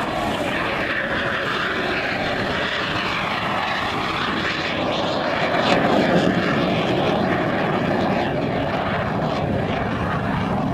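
Engine of a single aerobatic airplane flying a low display pass. The pitch glides up and down as it manoeuvres and passes, and it is loudest about six seconds in.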